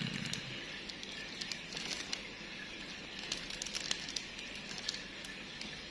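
Clear plastic bread wrapper crinkling with scattered light ticks as a wrapped bun is handled.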